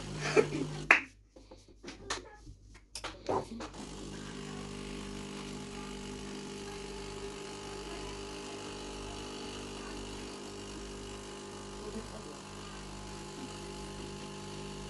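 A few sharp clinks and knocks, then an electric motor hums steadily for about eleven seconds and stops abruptly near the end.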